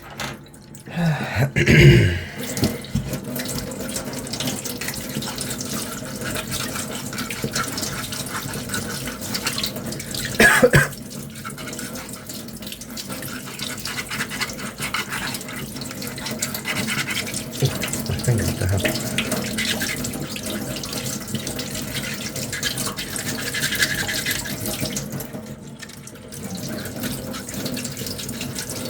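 Sandpaper rubbing back and forth on a putty-coated 3D-printed cosplay finger armour piece, a steady scratchy hand-sanding sound. Two louder knocks of handling come about two seconds in and about ten seconds in.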